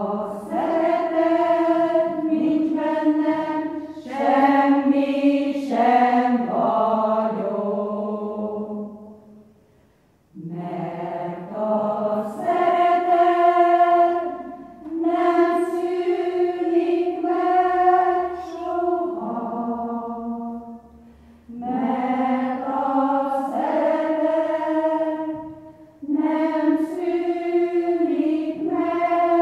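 Women's choir singing a hymn unaccompanied, in long sung phrases with short breaths between them: one about ten seconds in and two more in the second half.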